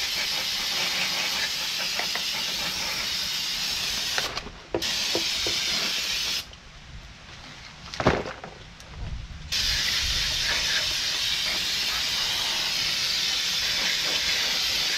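Aerosol brake cleaner spraying onto a new brake rotor in three long hissing blasts, washing the grease off the rotor before it is fitted. A short knock falls in the pause between the second and third blasts.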